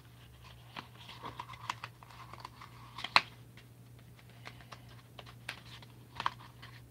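Small clicks, taps and rustles of fingers handling and pressing a rolled piece of craft foam as its glued edges are joined, with a sharp tap about three seconds in and another near the end. A low steady hum runs underneath.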